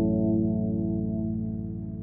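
Ambient background music: one held chord slowly fading.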